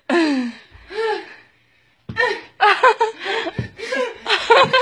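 A woman's voice gives two short cries, then after a brief pause breaks into hard laughter in rapid bursts.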